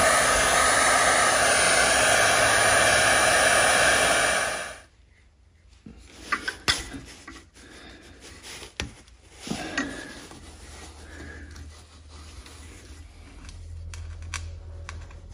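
Heat gun blowing steadily on the engine case, switched off about five seconds in; the heat is to loosen the old governor shaft seal. After it, scattered small clicks and scrapes of a screwdriver prying at the seal on the metal engine block.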